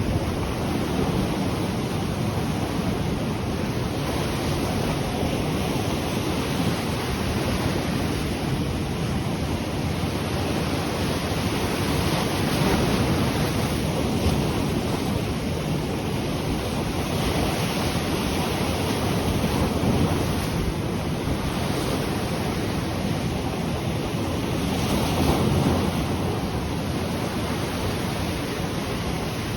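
Ocean surf washing onto the shore in a steady rush that swells a little every several seconds, with wind rumbling on the microphone.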